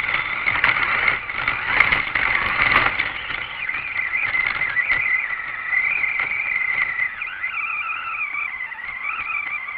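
RC truck's motor and drivetrain whining, the pitch rising and falling with the throttle, heard from a camera on the truck itself. For the first three seconds rough noise from the tyres churning through snow runs under the whine.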